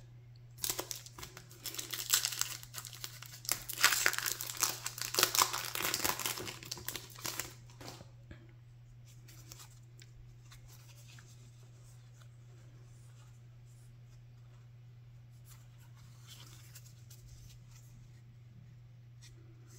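A trading-card booster pack's wrapper being torn open and crinkled for about seven seconds, followed by a quieter stretch of soft clicks from the cards being handled.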